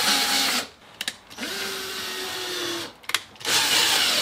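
Cordless drill-driver driving small screws into a window's trim frame in three short runs, the middle one quieter with a steady whine, with a few clicks in between.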